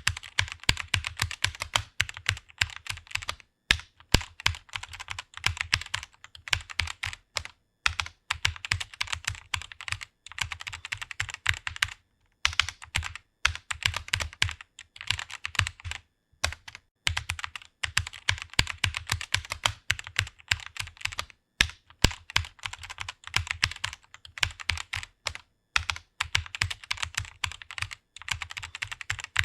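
Fast typing on a computer keyboard: rapid key clicks in runs, broken every few seconds by brief pauses.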